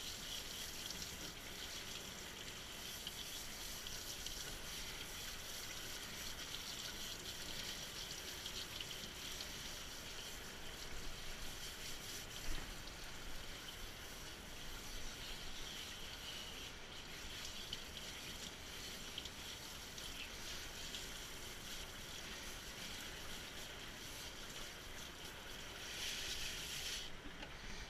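A grooming-tub hand sprayer hisses steadily as it rinses a wet dog's coat, with one brief knock about halfway through. The spray cuts off suddenly near the end.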